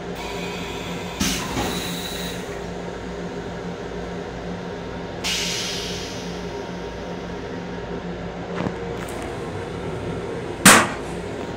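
Plastic toilet lid banging shut near the end, the loudest sound, over the steady hum and rumble of an M7 electric railcar running. A couple of light knocks come about a second in, and a brief hiss about five seconds in.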